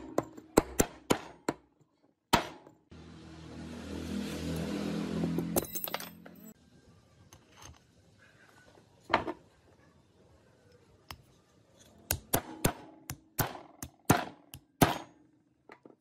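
Metal taps and clinks as a ball bearing is driven into a cast aluminium drill gearbox housing with a metal tube, and small steel parts are set into it: quick knocks at the start, one near the middle, and a cluster of clicks near the end. About three seconds in, a steady noisy hum of unclear source runs for about three and a half seconds.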